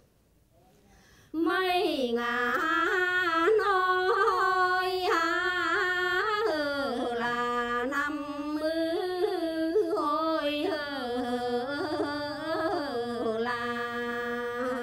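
Women singing a Quan họ folk song unaccompanied, a slow line with ornamented turns and held notes. The singing starts about a second and a half in after a brief silence.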